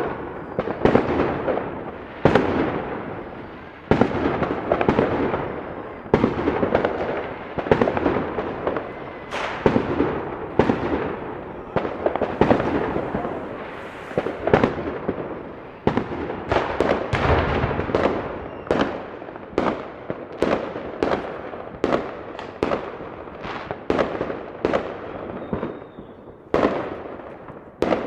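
A long series of sharp explosive bangs, each trailing off in a crackling echo, coming closer together in the second half.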